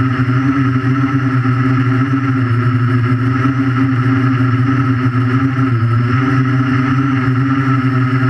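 Electric motors and propellers of an Invertix 3D quadcopter buzzing steadily in flight, heard from a camera strapped to its frame. The pitch dips and rises a little a few times.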